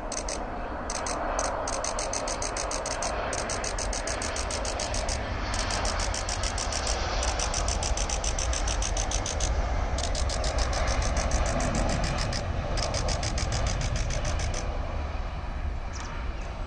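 Distant aircraft engine noise from planes at the runway, a steady rumble that swells a little around the middle, with wind buffeting the microphone.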